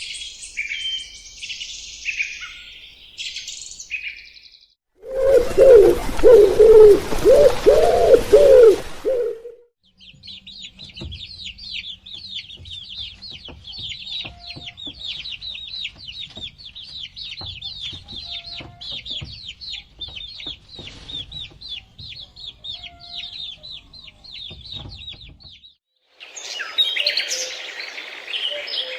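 A run of animal calls, mostly high bird chirps and rapid twittering, with a louder, lower wavering call in the middle.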